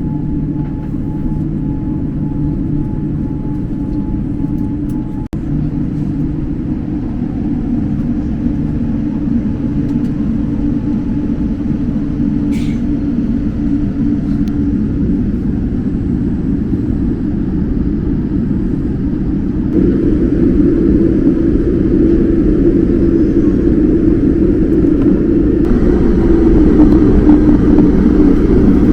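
Airliner cabin noise inside a Boeing 787-9: a steady low rumble, stepping louder about two-thirds of the way through and again near the end, with a faint steady whine in the first few seconds.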